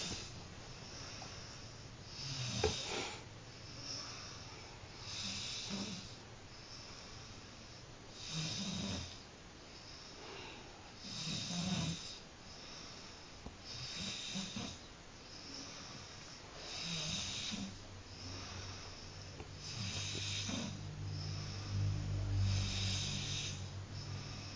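A person snoring heavily in deep sleep, with a loud snore about every three seconds and quieter breaths between. Near the end the snores turn into a deeper, steadier low drone.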